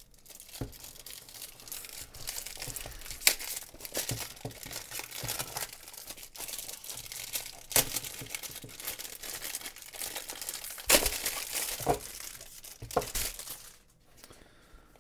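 Clear plastic wrapping crinkling and crackling irregularly as it is peeled off a speedcube's cardboard box, with a few sharper crackles; it goes quiet about a second before the end.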